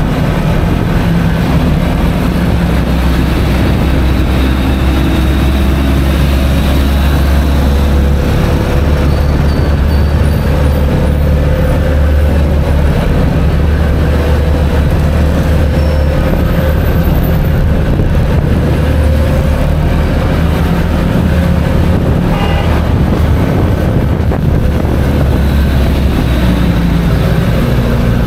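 Steady low rumble of a vehicle on the move: engine and road noise, with no pauses or changes in level.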